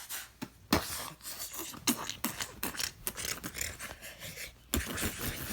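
Plush toys being bashed and rubbed together in a mock fight: a quick flurry of fabric rustles and soft thumps, with a sharper hit just under a second in and another near the end.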